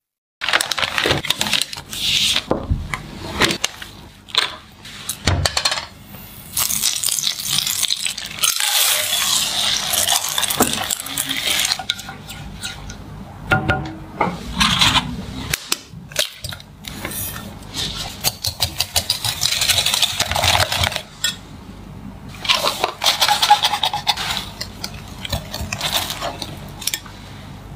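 Kitchen utensils clinking and scraping against a saucepan and a glass bowl as melted chocolate is stirred with a spatula and a chocolate mixture is whisked, with many sharp clinks.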